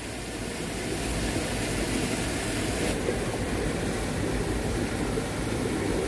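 Steady rushing outdoor noise with no distinct events, such as running water or wind on the microphone.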